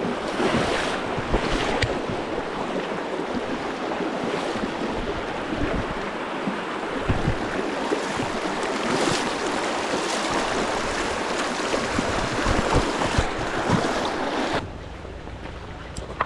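Steady rushing noise of river water and falling rain, which drops away abruptly near the end.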